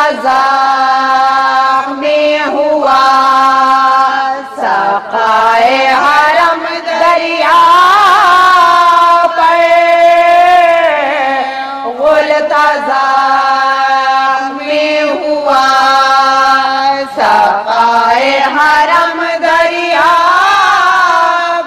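A woman's voice chanting a marsiya, an Urdu elegy for Abbas, in a slow melody of long held notes that waver and glide between pitches. It comes in phrases of a few seconds with short breaks for breath.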